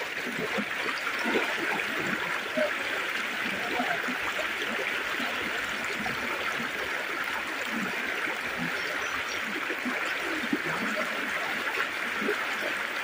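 Fast-flowing floodwater running down a village lane, a steady rushing of water.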